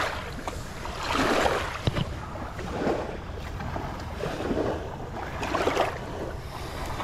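Small waves washing up on a sandy shore in swells every second or two, with wind on the microphone and a single sharp click about two seconds in.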